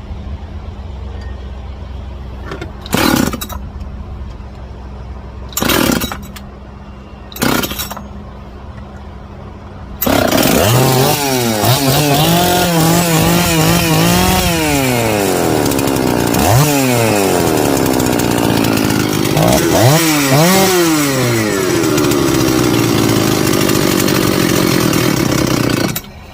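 Two-stroke Husqvarna 266SE chainsaw engine, rebuilt with a 268XP cylinder. Three short bursts of engine noise come first, then from about ten seconds in the saw runs loud, revving up and down several times before cutting off near the end.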